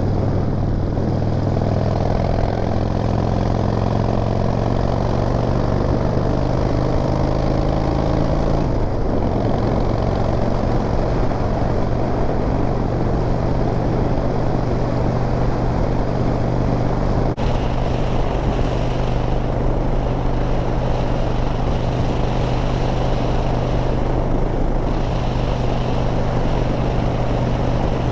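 Harley-Davidson V-twin motorcycle engine running under way, with the wind and road noise of riding. Its pitch climbs slowly for the first eight seconds or so, then settles into a steady run.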